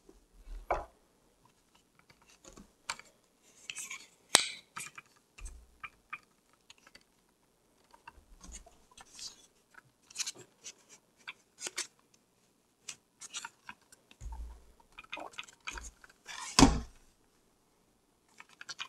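Zhiyun Smooth 5S smartphone gimbal being handled and folded: scattered clicks, taps and light scrapes from its arms and joints. There is a sharp knock about four seconds in and a louder, heavier one near the end as it is set down on the wooden tabletop.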